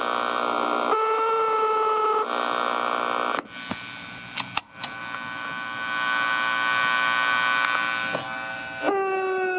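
Distorted electronic drone from a ProCo RAT and Marshall Guv'nor pedal chain through a Marshall mini-stack amp, not guitar feedback. The pitch jumps several times as the pedal knobs are turned. It drops out briefly with a few crackling clicks near the middle, then settles on a new, cleaner tone near the end.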